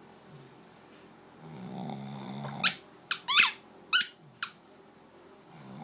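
A sleeping Shih Tzu snoring, one long low breath, followed by a squeaky dog ball squeaked five times in quick succession by another dog; the squeaks are much louder than the snore.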